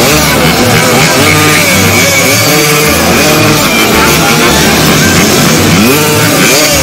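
Several motorcycle engines revving up and down, over background music with a steady beat.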